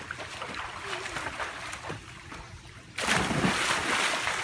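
Swimming-pool water splashing and sloshing as a boy dives in, with a sudden louder rush of splashing about three seconds in.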